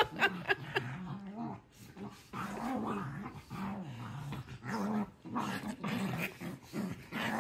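A dog growling during rough play with a person's hand: a low growl in three long stretches with short breaks, and a few short sharp sounds right at the start.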